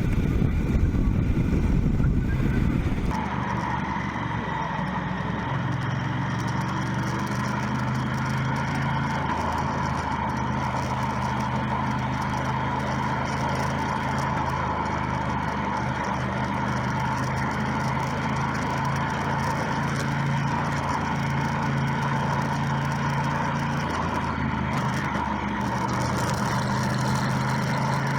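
Motorcycle ride: heavy wind rumble on the microphone for about three seconds, then the wind suddenly drops away and the motorcycle engine is heard running steadily at an even pitch.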